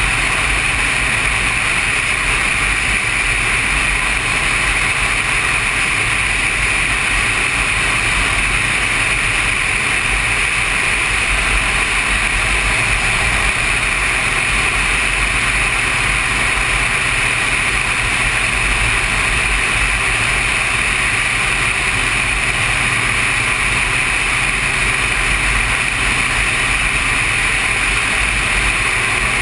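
Sport motorcycle cruising at a steady highway speed: wind rushing over the microphone with the engine running steadily beneath it, no change in pace.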